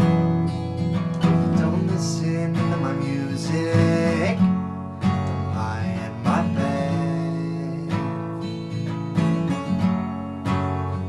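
Acoustic guitar played solo, strummed and picked chords forming an instrumental passage of a song, with a few notes sliding in pitch.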